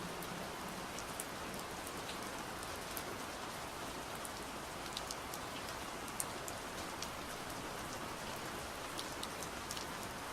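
Gentle, steady rain falling, with scattered individual drops ticking through the even hiss.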